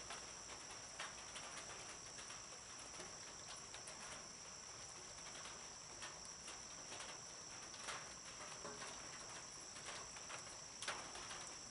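Crickets or other night insects trilling in a steady, high chorus, with scattered faint clicks.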